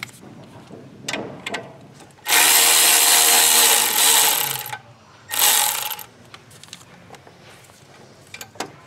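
Cordless power ratchet running, spinning off the bolt of the turbocharger-to-exhaust-pipe clamp. There is one long run of about two and a half seconds, then a short burst, with a few clicks of the tool being handled around them.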